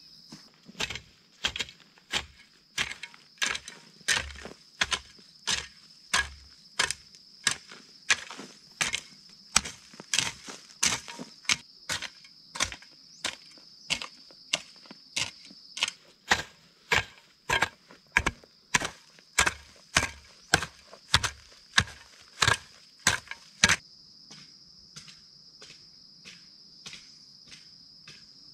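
Long-handled garden hoe chopping into soil and weeds in a steady rhythm, about one and a half strokes a second, stopping a few seconds before the end. Under it a steady high-pitched insect buzz.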